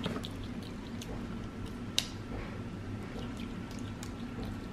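Capuchin monkey eating hazelnuts: small scattered crunching clicks as he chews, with one sharper crack about two seconds in, over a low steady hum.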